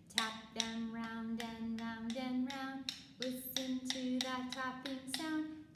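A woman singing a children's song while tapping a pair of rhythm sticks together in time, a sharp click about two or three times a second.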